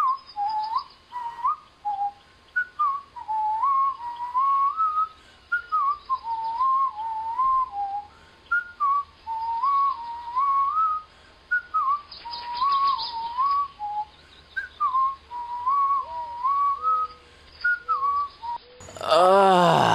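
A person whistling a simple tune in short phrases, one clear note at a time. Near the end a loud snore starts.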